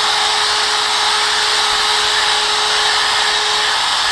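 Corded electric drill running steadily at high speed, spinning a Mother's PowerBall foam polishing ball to buff semi-chrome polish into aluminum trim. A continuous whine holds one constant tone throughout.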